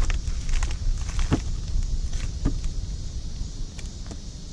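Plastic sheet-protector pages of a trading-card binder crinkling and rustling as they are flipped, with scattered short clicks and crackles.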